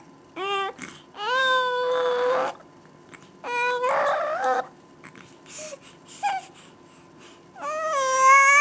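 Three long, high-pitched cries, each rising at the start and holding a steady pitch, the last the longest, with two short squeaks just before the first.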